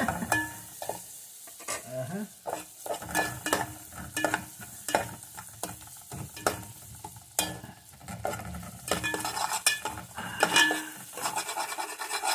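A metal spoon stirring and scraping garlic and onions frying in butter in a metal pot, knocking against the pot again and again over a light sizzle.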